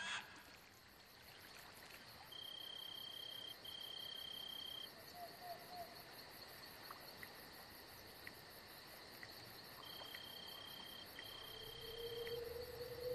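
Faint crickets chirping in a night-time insect chorus: a steady high chirring, with one insect giving two pairs of level trills, each about a second long. A low tone comes in near the end.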